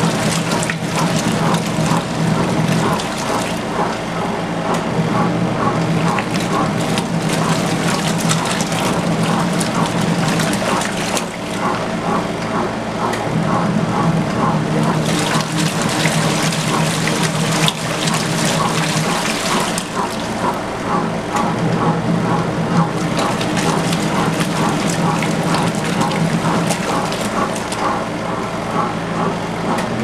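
Kuppet twin-tub portable washer's wash cycle: the motor hums steadily under the churning and sloshing of soapy water as the pulsator agitates a load of laundry.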